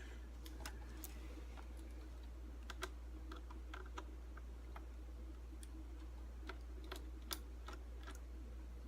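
Faint, irregular clicks and ticks of a small Phillips screwdriver working tiny laptop screws and the screws being handled, over a steady low hum.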